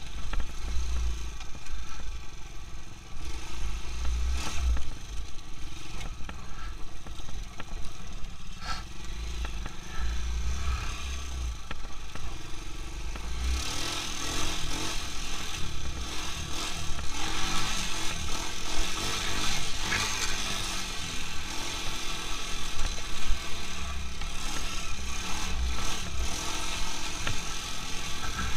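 Quad bike (ATV) engine running as the quad is ridden along a snowy track. About halfway through, the sound turns brighter and harsher and stays that way.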